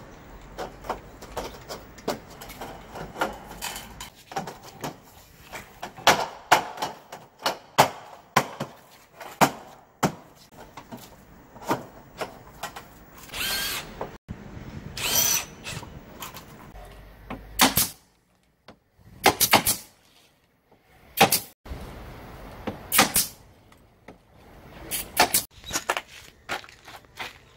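Cordless drill driving screws in short runs of about a second, between sharp knocks and clatter of trim pieces being handled and fitted.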